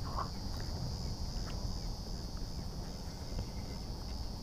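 Quiet outdoor background: a low, steady rumble with a steady high-pitched hum over it and a few faint ticks.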